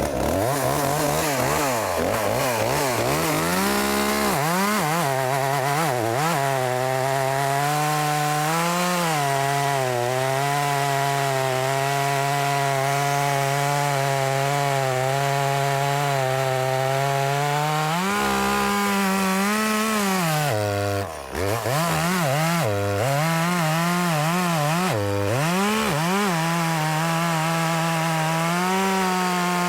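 Echo CS355T two-stroke top-handle chainsaw at full throttle, cutting through a log as it pivots on its new bucking dogs. The engine pitch sags and recovers as the cut loads it, with a brief drop in revs about two-thirds through and a few quick dips after.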